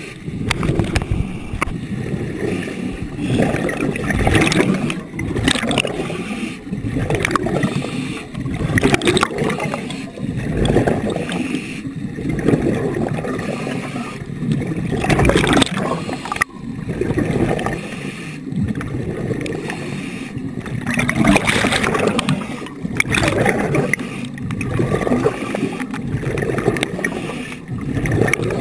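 Underwater water noise heard through a submerged camera housing: gurgling and rushing that swells and fades every second or two as the diver moves through the water.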